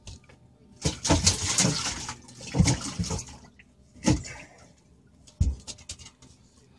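A big catfish splashing in the water of a boat's livewell as it is put in. Heavy splashing starts about a second in and runs for some two seconds, followed by a couple of shorter splashes.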